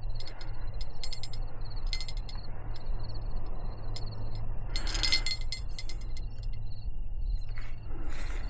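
Insects, such as crickets, chirping in a rapid, even pulse over a steady low rumble. A few light clinks come about one and two seconds in, and a louder rustle about five seconds in.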